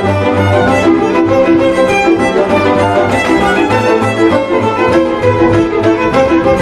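Hungarian folk string band playing a csárdás: a fiddle carries the tune over quick, even accompaniment chords and a pulsing low bass.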